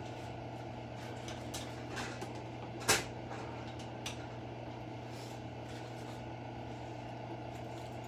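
Steady hum of kitchen background noise, with one sharp clack about three seconds in and a couple of lighter knocks, as a lidded frying pan on an electric stove is handled.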